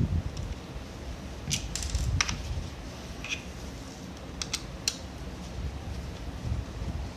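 Small sharp clicks and taps of plastic and metal parts being handled while a blank pistol is taken apart: a cluster about a second and a half in, another near the middle and a few more shortly after, over a low steady rumble.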